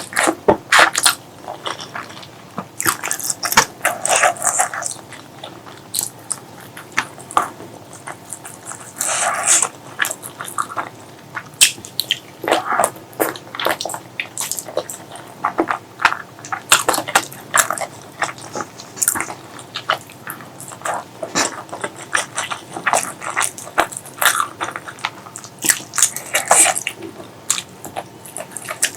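Close-miked eating sounds of spicy pork leg curry with rice: wet chewing, lip-smacking and biting as irregular sharp clicks and short bursts, with brief quieter gaps between mouthfuls.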